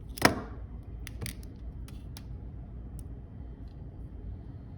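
Small hard clicks and taps from handling a phone's display and tools on a workbench: one sharp clack just after the start, then a few fainter clicks spread through the rest.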